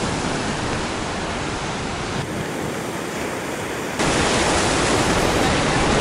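Stormy sea surf breaking and washing over a pebble beach, a steady rushing noise. About four seconds in it turns suddenly louder and fuller.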